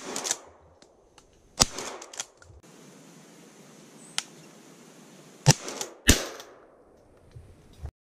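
Shotgun shots: three loud reports, each with a short echoing tail, one about a second and a half in and two in quick succession about five and a half seconds in.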